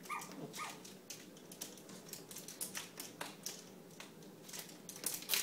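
Irregular light clicks and taps, several a second, at a low level.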